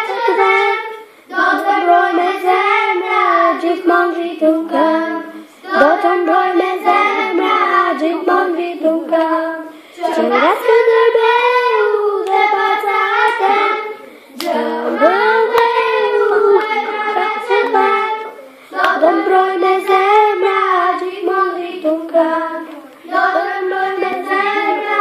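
Young girls singing a song, in phrases of about four seconds with brief pauses between them.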